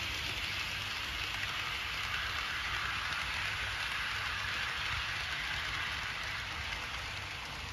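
Steady, hissing rolling noise of a KATO HO-scale freight train, hopper and box wagons running past on the track, easing slightly near the end.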